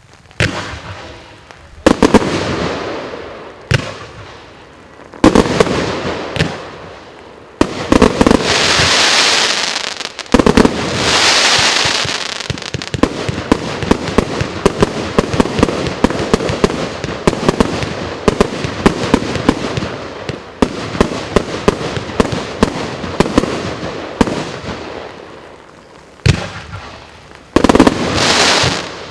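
A 90-shot consumer firework cake firing. At first single sharp bangs come a second or two apart. Then comes a rapid run of shots and bursts with crackling tails, thinning out and surging again near the end.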